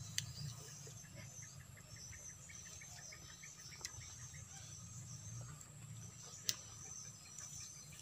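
Faint insect chorus: a steady high buzzing with a run of quick chirps, about five a second, for a couple of seconds. A few sharp clicks are heard over it.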